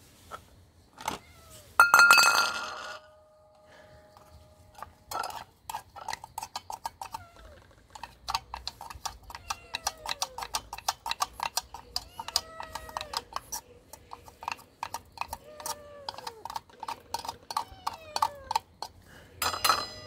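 A metal spoon scrapes and taps against a small tin can as cat food is scooped out, a quick run of clicks with a loud ringing clink about two seconds in and another near the end. Cats meow briefly several times over the scraping, each call falling in pitch.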